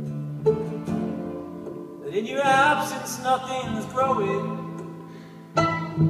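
Live acoustic band playing an instrumental passage: acoustic guitar and upright bass under a wavering melody line that comes in about two seconds in, with a fresh strummed attack near the end.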